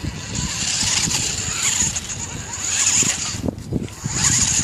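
Homemade four-wheel-drive RC truck's small electric motors and drivetrain whining as it drives over grass and leaves, the whine dropping out briefly about three and a half seconds in before picking up again.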